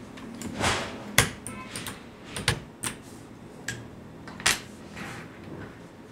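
ABKO Hacker K8300 mechanical keyboard with Kailh optical clicky switches, pressed slowly: about seven separate key clicks, unevenly spaced about half a second to a second apart.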